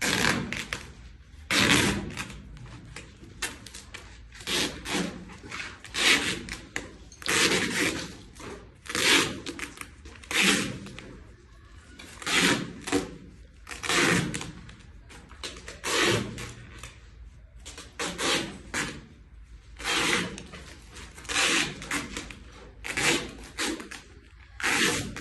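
Repeated short rubbing strokes, about one every second and a half, steady through the stretch.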